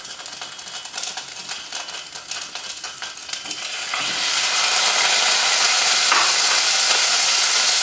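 Paneer cubes frying in hot oil in a pot: a single cube crackles lightly at first, then about four seconds in the rest of the cubes go in and the sizzle swells to a louder, steady hiss.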